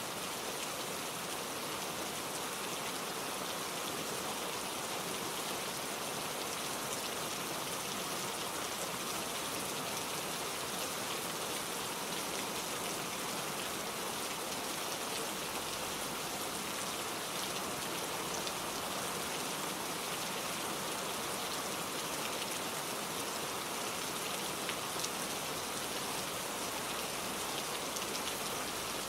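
Steady rain falling, an even hiss of many fine drops pattering on surfaces.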